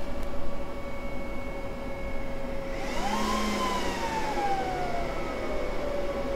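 Apple Xserve G5's cooling fans at power-on: over a steady fan whine, the fans surge up about three seconds in with a rush of air and a quickly rising whine, then slowly wind back down in pitch.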